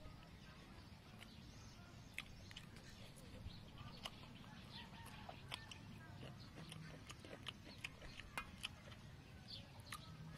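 Near silence with faint, irregular short clicks and brief chirps, several a second.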